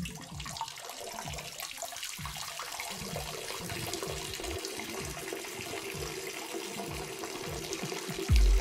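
A steady stream of running water that starts suddenly, with a muffled bass beat thudding about twice a second underneath. A loud bass beat cuts in near the end.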